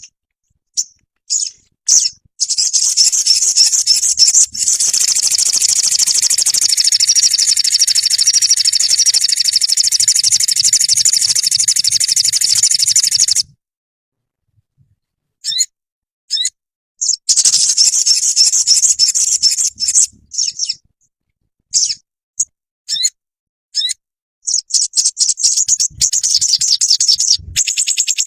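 Sogon birdsong for training caged birds: short high chirps, then long, fast, high-pitched trilling runs broken by pauses. There are three long runs, the first lasting about ten seconds.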